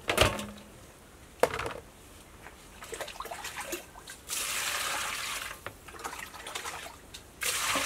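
Raw beef tipped into a large aluminium basin with a knock, a second knock about a second and a half in, then water poured from a plastic dipper onto the meat twice, about a second each time, the second pour near the end, to wash the beef.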